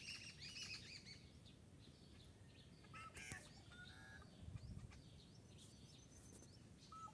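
Faint, scattered chirps and short whistled calls of small songbirds, several different calls, clustered about three seconds in and again near the end. A soft low thump about four and a half seconds in.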